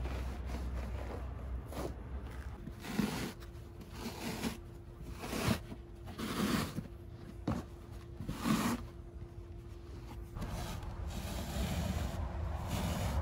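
Thick felt sound-deadening padding being pulled and torn away from the back of an old car carpet: a series of rough ripping and rubbing noises, louder between about three and nine seconds in.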